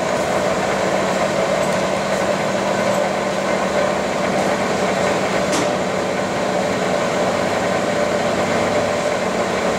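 Metal-turning engine lathe running at low spindle speed, about 65 rpm, set up for thread cutting: a steady motor and gear hum, with one light click about five and a half seconds in.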